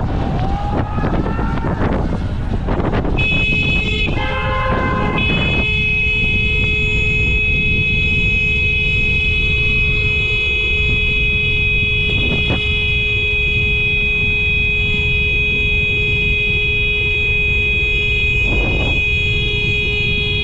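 Wind buffeting the microphone and road noise from riding a Sur-Ron electric dirt bike at speed. About three seconds in, a steady high-pitched tone starts and holds without change.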